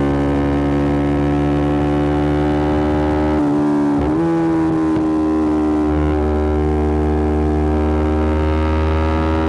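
Yamaha R125's 125 cc single-cylinder four-stroke engine running through an aftermarket Black Widow exhaust, holding a steady note that slowly sinks in pitch. About three and a half seconds in, the note breaks briefly, dips and comes back a little higher.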